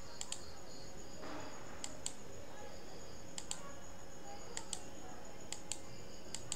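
Computer mouse clicking: about five pairs of short, sharp press-and-release clicks spaced a second or so apart, over a faint steady high whine and hum.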